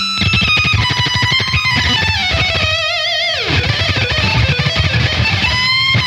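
Heavy metal mix of high-gain electric guitars through the MegaFuzzie RedFire amp simulator, modelled on a Mesa/Boogie Dual Rectifier. A distorted lead guitar holds sustained notes with a wide vibrato about three seconds in, then slides down in pitch, over fast chugging rhythm guitars and drums.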